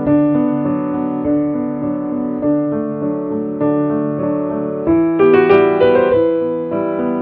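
Solo piano music playing slow sustained notes, with busier, higher notes coming in about five seconds in.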